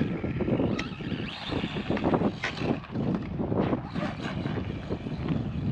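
Arrma Mojave Grom BLX mini RC truck driven over rough dirt and grass: its brushless motor whirring as the throttle comes on and off, with irregular knocks from the truck bouncing over the bumps.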